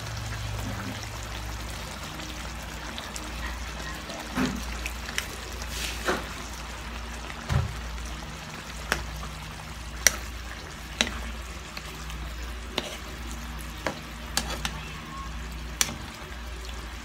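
Chicken and mushroom sauce simmering and sizzling in a frying pan, with a dozen or so sharp taps and clicks scattered through it, over a steady low hum.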